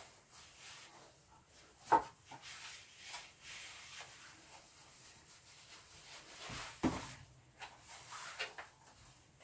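Wooden ladder knocking and creaking under slow footsteps as a person climbs down carrying a 25 kg dog in a harness, with a padded jacket rustling. A sharp knock comes about two seconds in and another near seven seconds.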